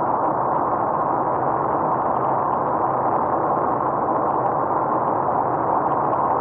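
Steady road noise of a car driving at highway speed, heard from inside the cabin: an even rush of tyres and wind with no changes.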